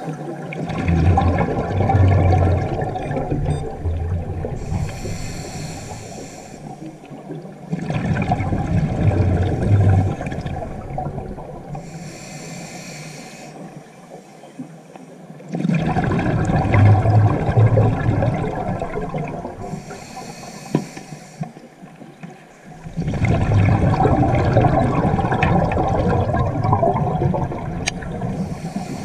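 Scuba diver breathing through a regulator underwater, four slow breaths about every seven seconds: each is a long bubbling rush of exhaled air, then a short hiss of inhaling.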